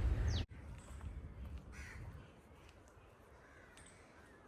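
Crow cawing faintly against quiet outdoor ambience, after a louder stretch that cuts off abruptly about half a second in.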